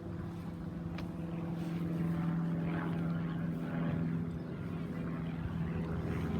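A train's steady low hum, one even tone with overtones that holds throughout.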